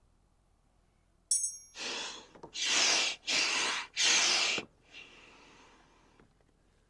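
A metallic clink, then four quick whooshing strokes of a hand-worked camping air pump blowing air into a chimney-brick forge, then a fainter hiss that fades away.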